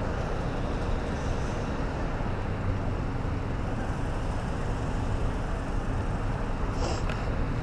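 Motorcycle riding through an intersection: steady engine and wind noise with no change in revs.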